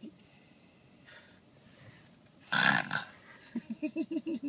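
A sleeping person snoring: after a quiet stretch, one loud snore about two and a half seconds in.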